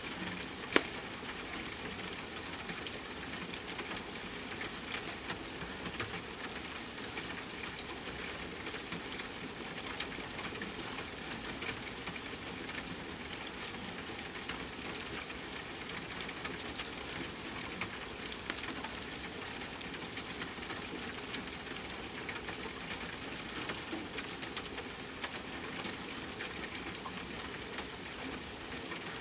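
Steady rain hiss mixed with a crackling wood fire in a fireplace, with scattered small crackles and a few sharper pops, the loudest about a second in.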